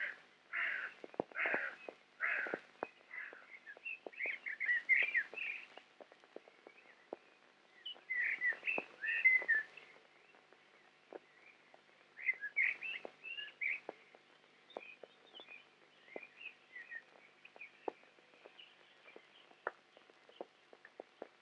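Small birds chirping in quick bouts of twittering notes, loudest in the first half and fainter later, with scattered faint clicks.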